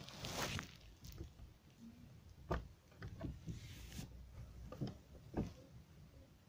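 Faint rustling of bedding and clothes with a few scattered light knocks, as someone shifts and reaches around in bed.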